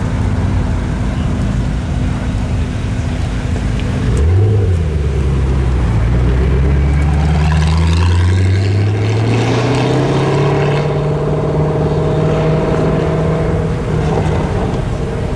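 First-generation Ford GT's supercharged 5.4-litre V8 idling, then a quick rev about four seconds in, after which the car pulls away and the engine pitch rises slowly and steadily as it accelerates.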